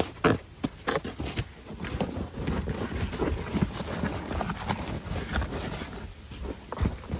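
A rolled-up mat being handled and pushed through a doorway of log stakes: rubbing and scraping against the wood, with a few sharp knocks in the first second and smaller knocks after.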